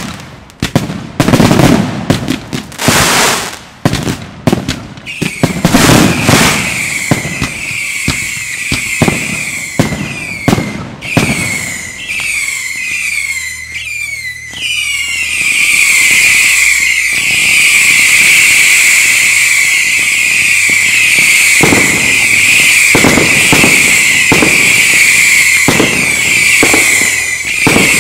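Daytime fireworks display: a fast string of loud bangs, then a growing chorus of high, shrill whistles from many shells and comets at once. The whistling fills roughly the second half, with further bangs going off over it near the end.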